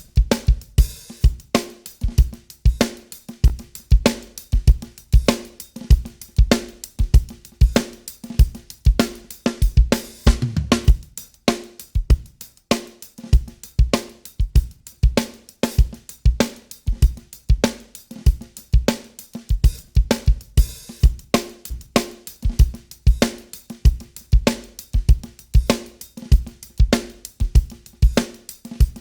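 Drum loop with kick, snare, hi-hat and cymbals playing a steady repeating groove, run through the TK Audio Transformer's first-stage drive saturation, which is switched in and out against bypass.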